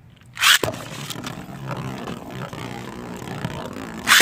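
Two Beyblade spinning tops, one of them 3D-printed, launched into a plastic stadium with a loud rip about half a second in. They then spin with a steady whirring and scraping, with scattered ticks, and there is a sharp collision hit near the end.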